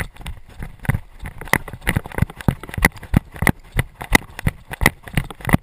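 Quick running footsteps, about three strides a second, each a thump with a clatter of gear.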